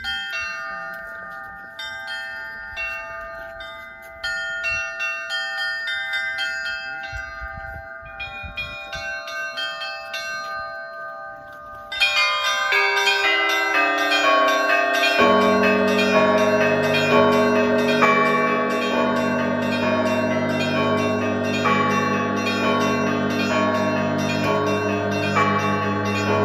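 Orthodox monastery bells ringing in a pattern: at first only smaller, higher bells. About twelve seconds in more bells join and it becomes much louder, and a few seconds later the deep low tones of the biggest bells come in under the rest, in a steady beat.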